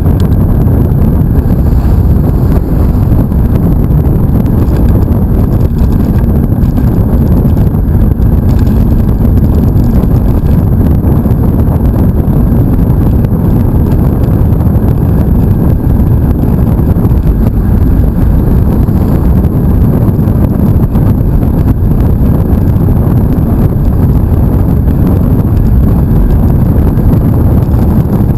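Loud, steady wind roar buffeting the microphone of a camera on a mountain bike riding fast on asphalt.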